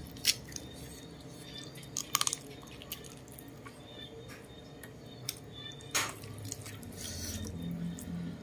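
Hands tearing apart a whole roasted chicken: wet, sticky pulling of skin and meat, with a few sharp cracks as pieces come apart, a quick cluster of them about two seconds in and another near six seconds.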